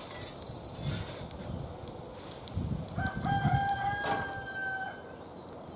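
A rooster crows once: a single long held call of nearly two seconds, starting about three seconds in.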